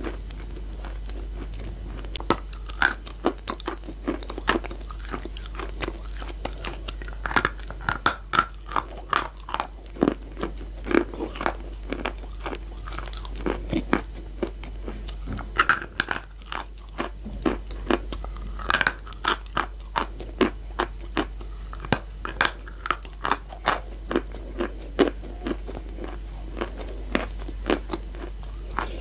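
Close-miked chewing of chunks of chalk: irregular sharp crunches as the pieces break between the teeth, coming several a second at times, over a low steady hum.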